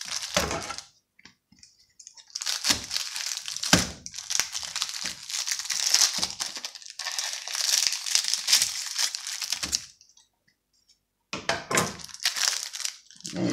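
Plastic film wrapper of a biscuit packet crinkling and tearing as it is handled and cut open with scissors, in uneven stretches of rustling with a few sharp cracks, a short pause near the end, then more rustling.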